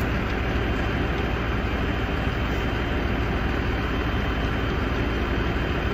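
Mobile crane's heavy diesel engine running steadily under load while the crane lifts a bus.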